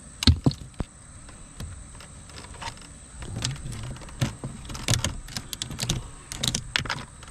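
A string of sharp clicks, taps and light metallic clatter, the loudest about a quarter second in. It comes from hand tools and parts being worked at a drilled-out ignition lock cylinder in a car's steering column.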